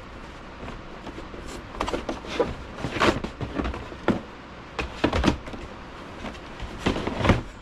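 Cardboard packaging being handled: a string of short scrapes and knocks, the last near the end the loudest, as a cardboard insert is shifted inside the box and a coiled cable is reached for.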